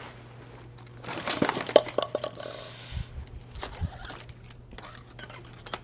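Hand-handling noises from working on bicycle cables: scattered clicks and light knocks, with a brief crinkly rustle about a second in, over a steady low hum.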